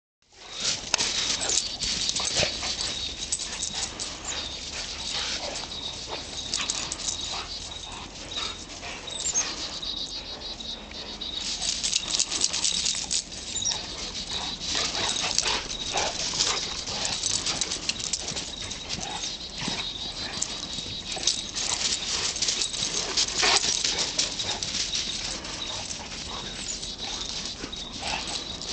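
Golden retriever and St Bernard play-fighting in the snow: dog noises and a continuous scuffle of short, irregular sounds, under a faint steady high-pitched tone.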